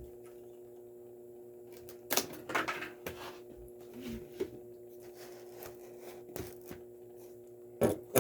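Scattered clicks and crackles of small toy-car packaging being handled and opened, over a steady low hum.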